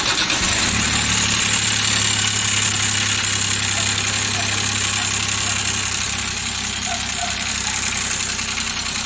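Suzuki K6A three-cylinder engine idling steadily just after starting, with a knocking from the top end. It is freshly overhauled, and oil is not reaching the top of the cylinder head.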